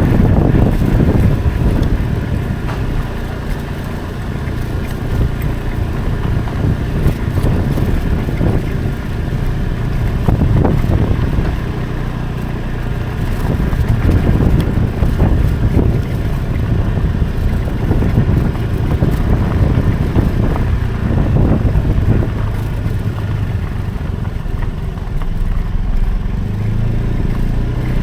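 Motorcycle engine running steadily under way on the road, with wind rushing over the microphone.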